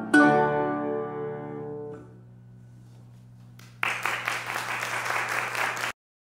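Piano and guitar strike the sonata's final chord together, which rings and fades away over about two seconds. After a short hush, audience applause breaks out and cuts off suddenly near the end.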